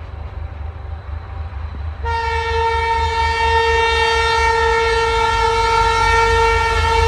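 Diesel locomotive horn giving one long, steady blast that starts about two seconds in, over a low rumble. It is a warning at a car standing on the level crossing in the locomotive's path.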